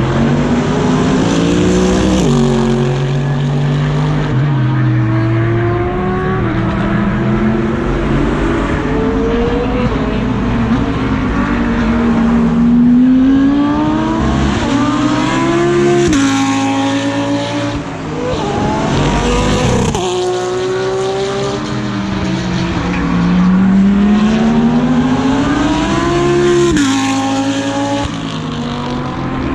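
GT3 race car engine heard from on board, pulling hard through the gears: the pitch climbs and then drops sharply at each upshift. Around two-thirds of the way through, several quick steps in pitch come as it downshifts under braking, before it climbs again.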